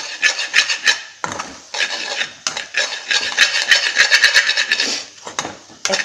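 A spoon stirring and scraping scrambled egg around a metal kadai, with rapid clinks and scrapes of the spoon against the pan, pausing briefly about a second in and again near the end.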